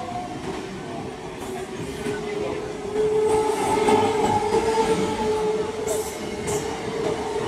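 Conventional EMU local train rolling past along the platform as it pulls out, its electric traction motors whining in a steady tone over the rumble of the wheels on the rails. The sound grows louder about three seconds in.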